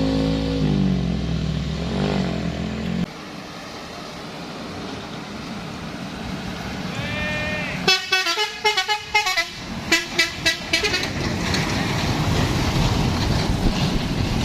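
A heavy vehicle's engine running loud, its pitch falling, then cut off abruptly about three seconds in. Past the middle, a bus's telolet horn plays a quick string of short musical toots for about three seconds, followed by the noise of the passing vehicle.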